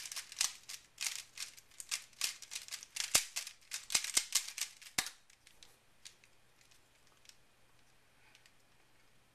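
MoYu AoLong v2 3x3 speedcube being turned quickly, a rapid run of plastic clicks and rattles for about five seconds while it is scrambled, then it goes nearly quiet with only a few faint ticks as the cube is held for inspection.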